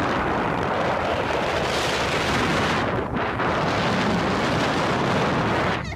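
Wind buffeting the camera microphone: a loud, steady rumbling hiss that dips briefly about three seconds in.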